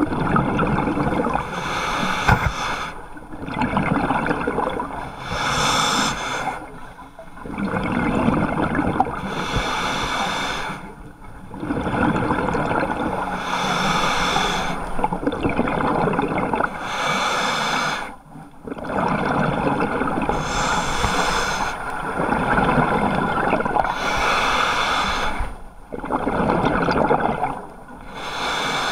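Scuba diver breathing through a regulator underwater: rushes of hissing and bubbling breath broken by short pauses, repeating about every three to four seconds.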